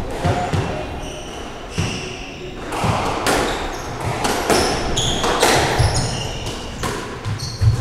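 Squash rally: the ball smacking off rackets and walls at irregular intervals, with shoes squeaking sharply on the wooden court floor, echoing in the enclosed court.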